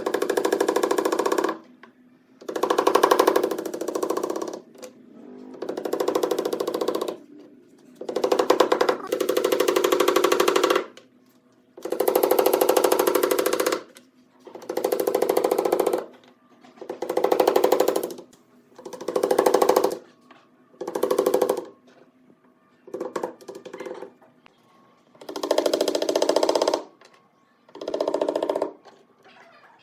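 A woodworking power tool with a fast, rattling, reciprocating action, run in about a dozen short bursts of one to two seconds with brief pauses between.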